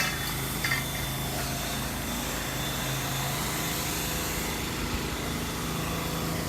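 Steady hum of a running motor, a small engine or blower, with a couple of brief metallic clinks in the first second.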